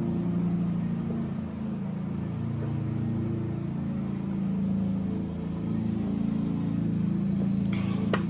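Steady low drone of an engine running outside, its pitch wavering slightly, loud enough to fill the room. A few small clicks come near the end.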